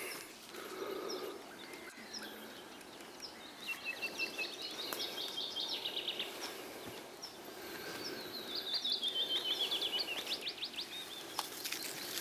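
A songbird singing twice, each song a quick run of high notes; the second falls in pitch and ends in a rapid flourish.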